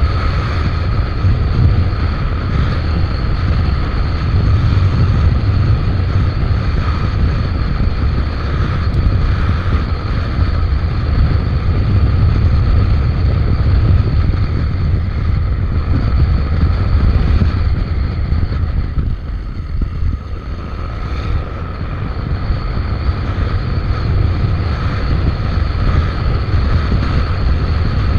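Wind rumbling on the microphone over the steady running of a Suzuki Avenis 125 cc scooter being ridden, with a faint steady whine; the noise eases briefly about two-thirds of the way through.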